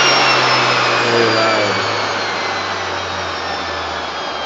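Advanced DC A00-4009 36-volt series-wound brushed DC motor, run from a Curtis 1209B controller, spinning at high speed and winding down. Its whine and rushing hiss fall steadily in pitch and level.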